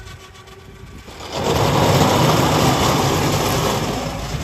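1987 Toyota 4Runner's engine running while its front-mounted poly snow plow pushes snow. About a second in, a loud rushing, scraping noise starts up as the blade shoves snow close by, easing off near the end.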